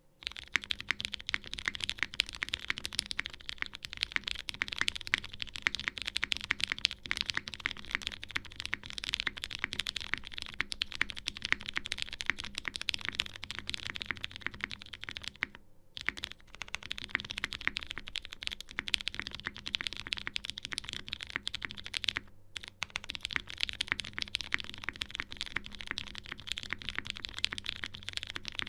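Fast, continuous typing on a custom mechanical keyboard: Lin Whale case, polycarbonate half plate, Cherry MX vintage brown switches drowned in Krytox 205g0 lube, GMK keycaps. The clatter stops twice for a moment, a little past halfway and again about three-quarters of the way through.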